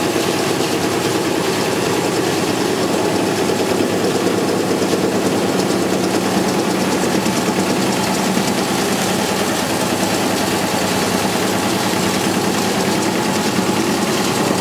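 Shaking screener for animal feed pellets running: a steady, dense mechanical shaking noise with a low hum underneath as feed is sieved through it.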